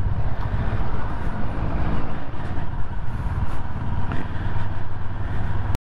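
CFMoto CLX 700's parallel-twin engine running steadily while riding, with a steady hiss of wind and road noise. It cuts off suddenly near the end.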